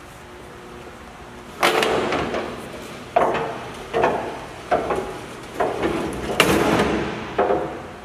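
Steel door of a Marathon 4830 HD vertical cardboard baler being unlatched and swung open: a run of about seven metal clanks and bangs with a brief ring after each, starting about a second and a half in, the loudest near the end.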